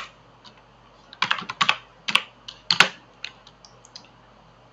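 Typing on a computer keyboard: sharp keystroke clicks in short irregular bursts with pauses between, the later strokes fainter and more spaced.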